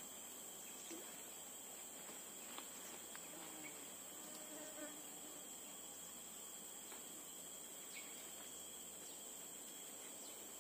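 Steady, high insect chorus of crickets or cicadas, with a few faint clicks.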